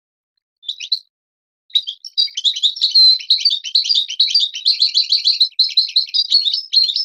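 European goldfinch (Moroccan goldfinch) singing: one short call about a second in, then from about two seconds in a fast, continuous twittering song of rapid chirps and trills.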